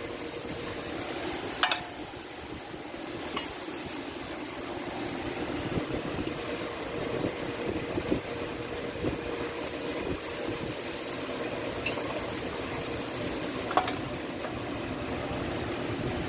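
Metal hand tools clinking against engine parts during an engine teardown: four sharp clicks spread over the stretch, over a steady mechanical hum.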